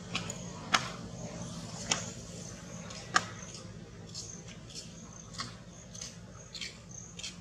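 Sharp clicks, three loud ones about a second apart in the first half, then fainter quick ticks, over a low steady hum.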